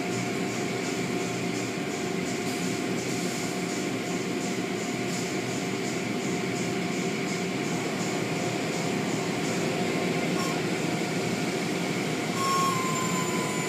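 Automatic car wash machinery running with a steady drone and a faint regular pulsing. A steady high tone comes in near the end.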